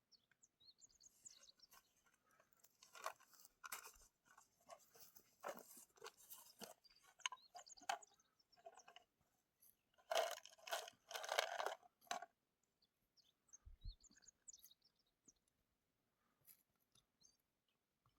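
Irregular crunching and crackling, loudest for a couple of seconds about two-thirds of the way in, then stopping, followed by a few faint high chirps.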